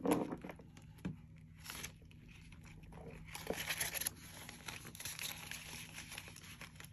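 Paper dollar bills being slid into a clear plastic cash pouch, the plastic crinkling and the bills rustling. The rustle is densest about halfway through.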